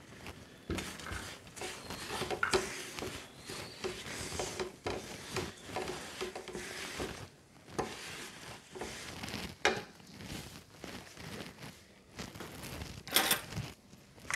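Wooden spatula stirring sesame seeds and crushed peanuts into thick jaggery syrup in a non-stick frying pan: irregular scraping and rasping against the pan, with a few sharp knocks of the spatula.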